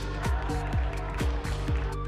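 Background electronic music with a steady kick-drum beat, about two beats a second, over held synth notes.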